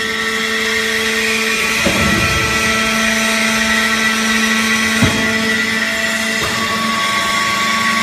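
Hydraulic power unit of a vertical baling press, an electric motor driving a hydraulic pump, running with a steady whine. Its tone shifts about 2 seconds in and again about 6.5 seconds in, with a short knock at about 5 seconds.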